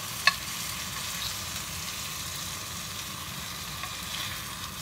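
Vegetable oil and butter sizzling and crackling steadily in a skillet as pan-fried chicken breasts are lifted out with tongs, with one sharp click just after the start.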